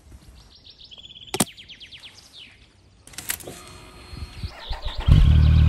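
Birds chirp in quick descending trills, with a sharp click in between. Then come a couple of clicks and a faint steady hum as the ignition is switched on. About five seconds in, the Triumph motorcycle's three-cylinder engine starts and runs, much louder than everything before it.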